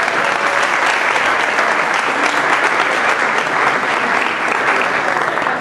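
Audience applauding: a crowd's dense, steady clapping.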